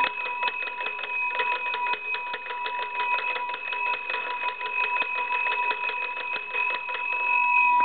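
Monarch wooden wall telephone's twin brass bell gongs ringing as its hand-crank magneto is turned: the clapper strikes in a rapid, even rattle over two steady ringing tones, until it stops at the very end.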